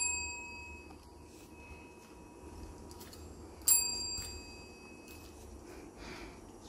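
A chrome desk bell struck by a beagle's paw to ask for a treat: its ring is fading at the start, then a single sharp ding a little after halfway rings out and fades over about two seconds.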